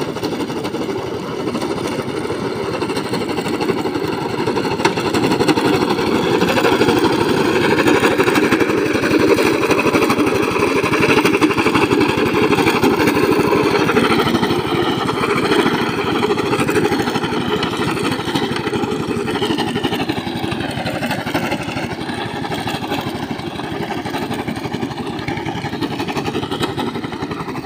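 Small engine of a walk-behind cylinder (reel) lawn mower running steadily as it cuts grass, a little louder through the middle stretch.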